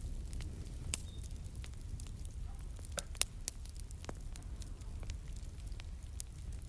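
Crackling fire: irregular sharp pops and snaps, a few a second, over a low steady rumble.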